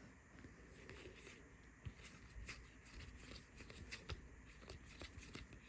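Faint handling of trading cards: a stack of football cards being flipped through, with soft scattered clicks and rustles as the cards slide against each other.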